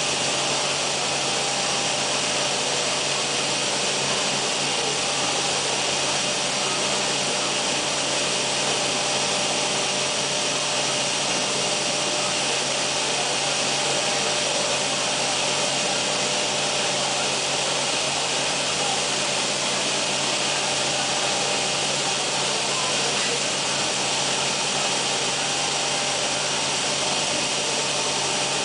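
Biesse Rover 322 CNC router running with a steady, even high hiss and faint steady hum tones beneath it, without change or pause.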